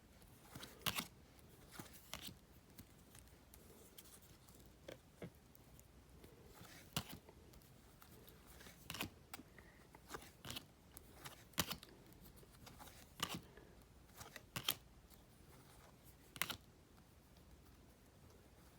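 Faint handling of Topps Match Attax trading cards, flipped through one at a time: a sharp snap or tap of card stock every second or two.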